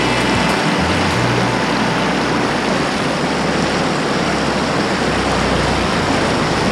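Steady rushing of whitewater through a river rapid, a breaking wave close by.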